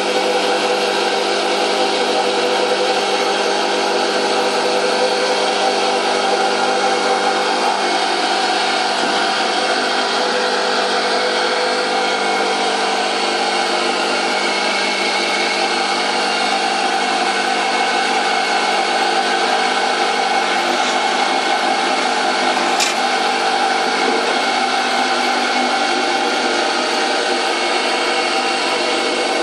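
Homemade chipper driven by an electric water-pump motor, running steadily with a constant many-toned hum. About three-quarters of the way through there is one sharp click.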